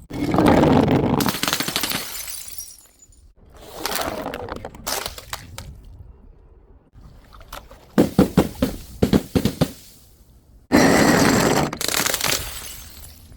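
Glass bottles and jars smashing in a series of crashes, each trailing off: one at the start, a weaker one about four seconds in, a quick run of sharp cracks and clinks around eight seconds, and a loud smash near the end.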